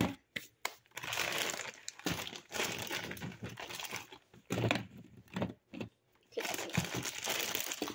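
Plastic bag of frozen pizza rolls crinkling and rustling as hands dig into it, in two long stretches with a short pause between, and a few sharp clicks at the start.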